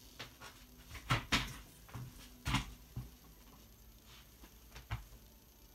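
A handful of scattered knocks and clunks from someone moving about off-camera, the loudest a little over a second in and about two and a half seconds in.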